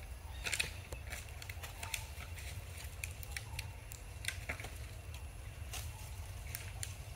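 Outdoor ambience: a steady low rumble, like wind on the microphone, with scattered short clicks and crackles, the loudest about half a second in.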